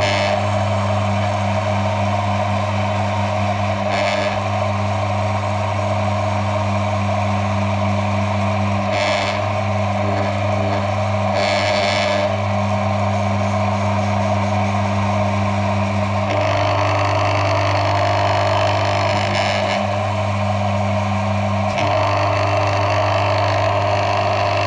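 Electric motor of an oil friction test rig running steadily with a strong mains hum, turning the steel test ring while its pitted surface is ground smooth. A few brief hissy surges come about 4, 9 and 12 seconds in.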